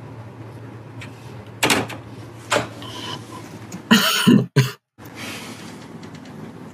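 A person coughing in short bursts over a low steady hum: two lighter coughs a little under two and near three seconds in, and the loudest ones at about four seconds.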